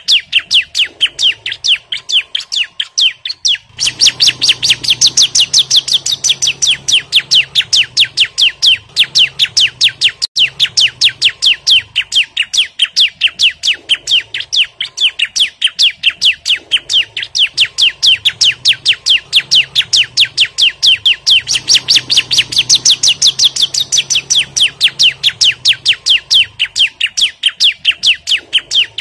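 Bar-winged prinia (ciblek) calling hard and without pause: a rapid, evenly repeated series of sharp, high notes, the agitated call a male uses to challenge a rival.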